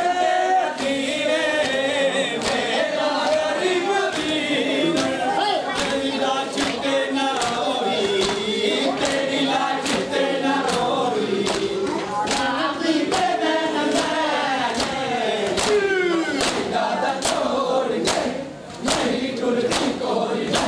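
A crowd of men chants a Muharram mourning lament (noha) together, with a steady beat of sharp hand slaps on bare chests (matam), a little under two a second and clearer in the second half. The chanting breaks off briefly near the end.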